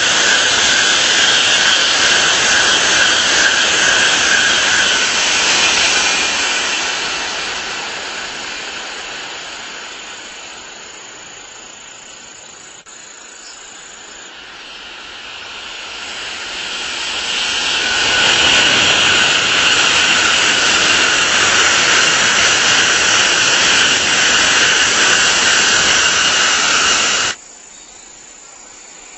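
Tokaido Shinkansen bullet trains passing at speed: a loud, steady rushing noise with a whine in it. It fades away over about ten seconds, builds back up as another train passes, and cuts off suddenly near the end.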